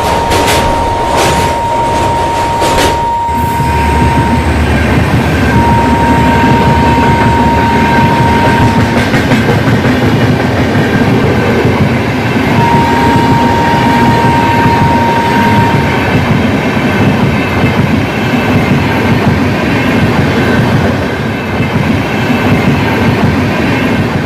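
A train running on rails with a continuous wheel-and-track rattle. A run of sharp clicks fills the first three seconds, and a steady high tone sounds over it, breaks off and resumes twice.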